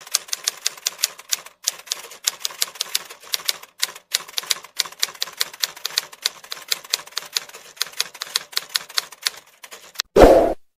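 Typewriter keystrokes, several sharp clicks a second in irregular runs with short pauses, ending in one short, loud burst near the end.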